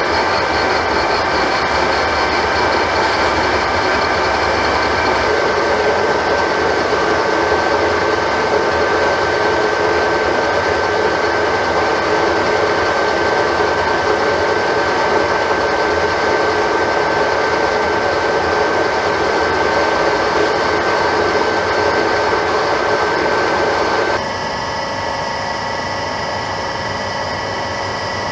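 R5 metal lathe running with a boring bar cutting inside the bore of a two-stroke kart cylinder: a steady machining noise with a thin steady whine. About 24 seconds in it cuts off suddenly to a quieter steady hum.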